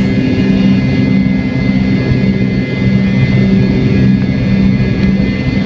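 Jet airliner engines and cabin noise heard from inside the passenger cabin while the plane moves along the ground: a steady hum with a few constant tones.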